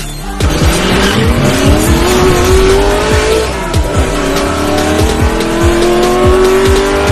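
Outro music with a steady beat, with a car engine revving over it: its pitch climbs for about three seconds, drops, then climbs and holds again.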